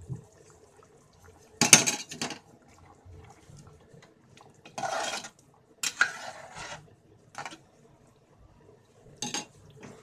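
Metal ladle knocking and scraping against a metal cooking pot while a thick chickpea curry is stirred. There is a loud clatter about two seconds in, scraping strokes around five to seven seconds, and a few lighter knocks near the end.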